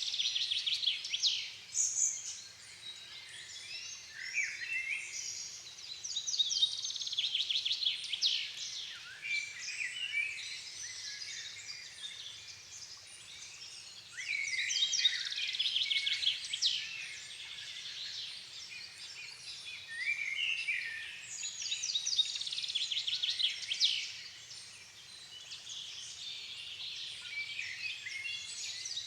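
Dusk chorus of several songbirds singing over one another in phrases a few seconds long, full of rapid repeated notes and short trills.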